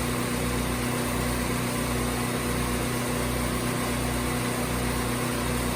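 Gasoline engine-driven 30-gallon service truck air compressor running steadily during a pump-up test, with an even low pulsing under a constant hum.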